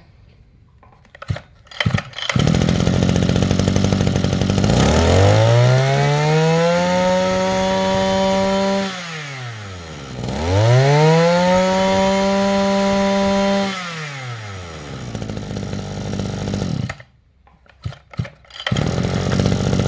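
Maruyama 2630 brush cutter's small two-stroke engine starting about two seconds in and idling, then revved twice with a rising whine that holds and winds back down to idle each time. Near the end the sound cuts out briefly with a few clicks before the engine runs again.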